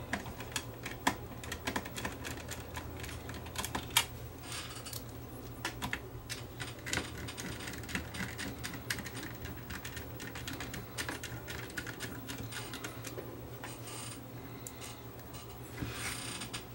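Irregular small clicks, taps and rattles of hands and a screwdriver working on the sheet-metal chassis and plastic parts of an opened CD player, over a faint steady low hum.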